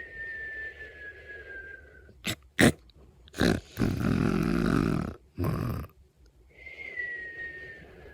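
A person snoring: a couple of short snorts, then a long rattling snore in the middle. A thin whistling tone, falling slightly in pitch, sounds at the start and again near the end.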